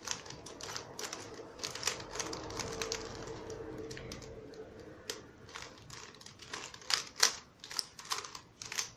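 Plastic Rubik's cube layers being turned by hand through a solving algorithm: irregular clicks and clacks a few times a second, coming faster near the end.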